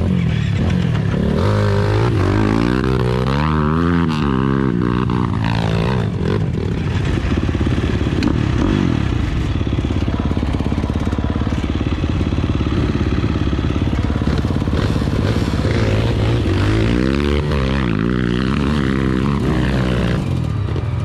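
Trail motorcycle engine running on an off-road track, its pitch rising and falling over and over as the throttle is worked a couple of seconds in and again near the end, holding steadier in between.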